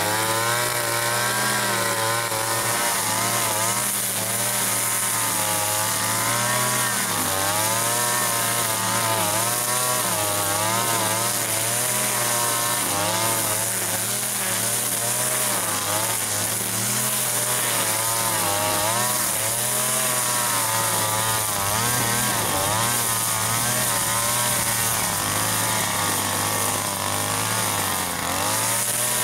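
Petrol chainsaw running while it cuts wood, its engine pitch rising and falling continuously as the load changes.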